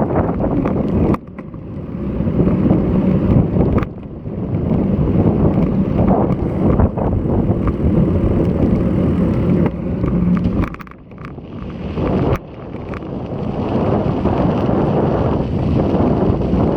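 Strong wind buffeting an action camera's microphone on a moving bicycle, a loud rumbling roar that cuts out suddenly and briefly about four times as the gusts shift.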